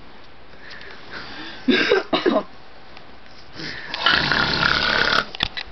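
A man snoring in his sleep: a short, loud snore about two seconds in, then a longer, noisier snore starting about four seconds in.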